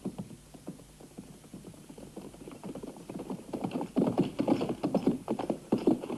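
Hoofbeats of a horse, faint at first and louder from about four seconds in.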